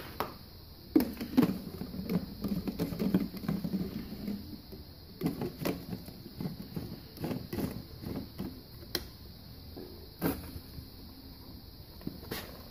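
Scattered knocks and clicks as a plastic garden sprayer is handled, with its pump head set back into the tank and screwed down.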